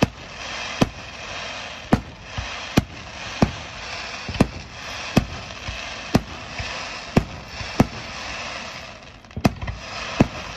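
Aerial fireworks going off: a string of sharp bangs about one a second, with crackling from the bursting stars in between and a brief lull shortly before the end.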